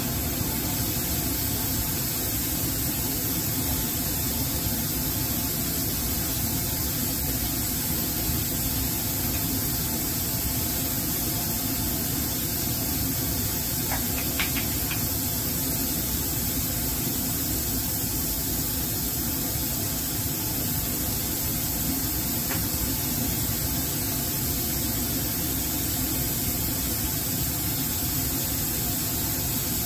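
Steady hiss of air being sucked through the filter cake in a porcelain filter funnel under lab vacuum, drying the recrystallized solid once the liquid has been pulled off. A couple of faint glass clinks come about halfway through.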